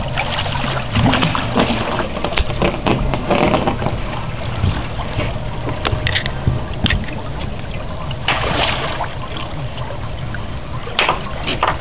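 Steady low rumble of wind and boat with scattered knocks and water splashing as a hooked sturgeon thrashes at the surface alongside the boat.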